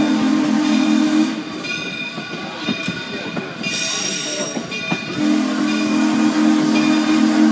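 A locomotive sounds its horn or whistle: a steady low chord of several tones held for a long blast that stops about a second and a half in, and a second long blast that starts about five seconds in. Train noise runs between the blasts, with a short hiss near the middle.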